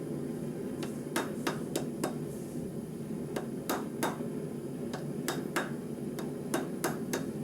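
Hand hammer striking hot rebar on an anvil in irregular runs of sharp blows, forging and straightening the handle halves, over the steady rushing of a running forge.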